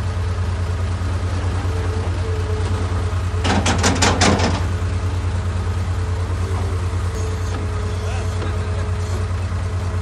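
Heavy diesel engine of earthmoving machinery running steadily with a low, even pulse. About three and a half seconds in comes a brief, rapid clatter of sharp knocks.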